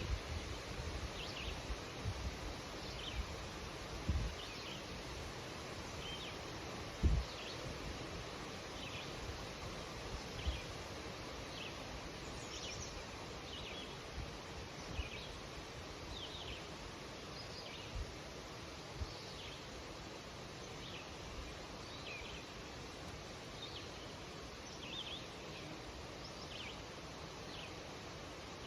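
Wind rustling in birch leaves, with small birds chirping, short high chirps about once a second. A few low gusts of wind bump the microphone, the strongest about seven seconds in.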